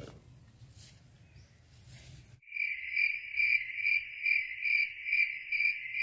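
Crickets chirping: a steady high trill that swells and fades about two to three times a second, starting suddenly about two and a half seconds in, after faint outdoor background.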